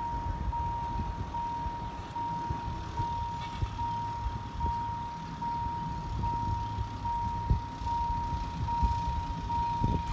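Railway level-crossing warning signal: one steady electronic tone, broken by short gaps so that it repeats a little more than once a second, sounding while the barrier arm comes down to warn of an approaching train. A low rumbling noise runs beneath it.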